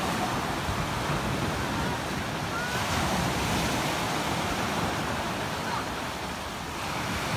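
Sea surf: small waves breaking and washing up onto a sandy beach, a steady rushing wash.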